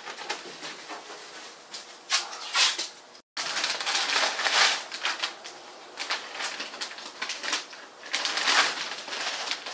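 Plastic masking sheeting and masking paper crinkling and rustling in irregular bursts as they are handled and pressed down over a car body being masked for paint. The sound cuts out completely for a moment just after three seconds in.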